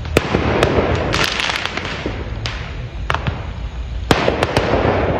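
Fireworks going off: a string of sharp bangs and cracks, some single and some in quick clusters, over a continuous hiss.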